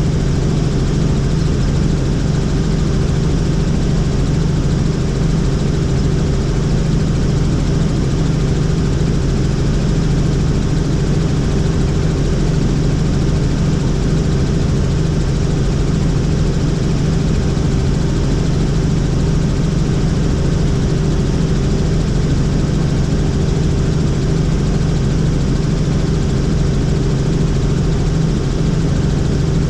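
Helicopter in steady cruising flight: a constant engine and rotor drone with a low, unchanging hum.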